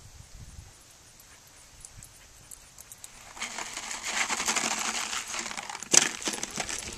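Dog treats rattling inside a plastic bottle as it is shaken for about two seconds, then a sharp clatter as the bottle is tossed and hits the ground about six seconds in, with the treats rattling briefly after.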